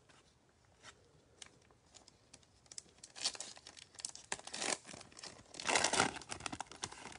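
Foil wrapper of a Panini Select football card pack being torn open by hand. A few light rustles come first, then crinkling and tearing from about three seconds in, loudest near the end.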